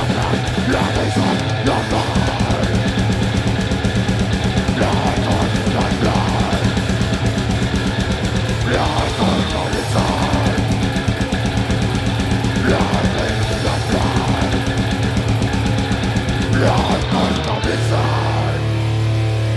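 Death metal band playing live: fast drumming, heavily distorted guitar and bass, and growled vocals over the top. Near the end the drumming thins and a low chord is held.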